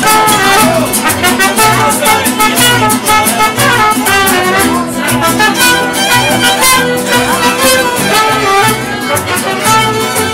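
Live mariachi band playing: violins carry the melody over a steady strummed rhythm of vihuela and guitar, with guitarrón bass notes and a trumpet joining in.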